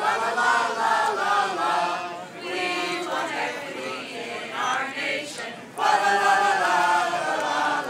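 A group of carolers singing a Christmas carol together, many voices on one melody. The singing dips briefly about five and a half seconds in, then comes back louder.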